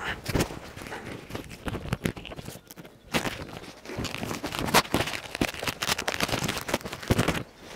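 Stiff leather welding jacket rustling as it is swung on and fastened at the collar, in a run of short scuffs, with a short lull about three seconds in and stopping just before the end.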